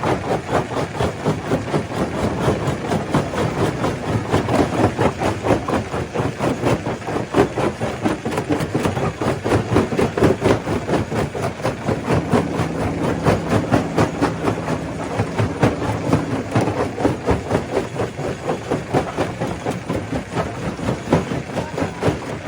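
Stone crusher running and crushing rock: a continuous loud clatter of rapid, uneven knocks over a low machine drone, with a steady hum joining for a few seconds midway.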